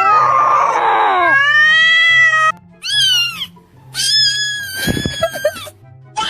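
A cat meowing four or five times in long, drawn-out, wavering meows with short gaps between them, over background music; a brief low thud about five seconds in.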